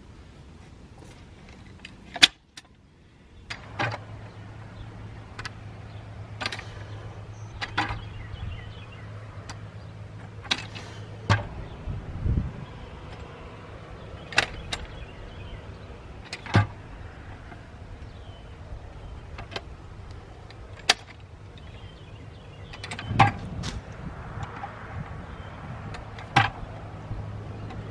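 Manual post-hole digger being worked into hard ground: sharp metallic strikes and scrapes at an irregular pace, every second or two, over a low steady hum.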